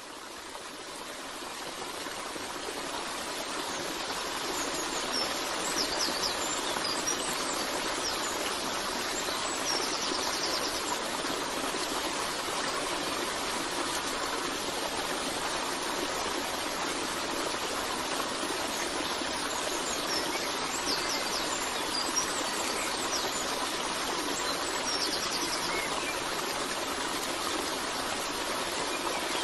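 Waterfall rushing steadily, fading in over the first few seconds, with a few short, high bird chirps and trills now and then.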